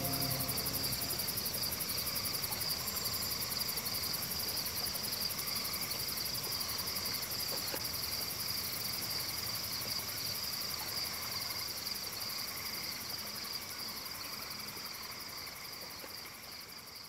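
Steady, high-pitched insect chorus with a fine, fast pulsing, slowly fading out toward the end.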